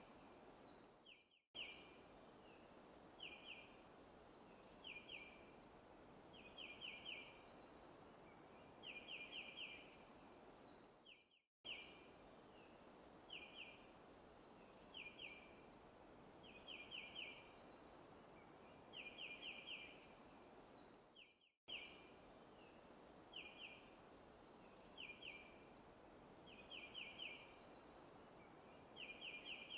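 Faint looped forest ambience: a steady soft hiss with a bird repeating short runs of two to four quick high chirps every second or two. The loop restarts about every ten seconds, with a brief dropout each time.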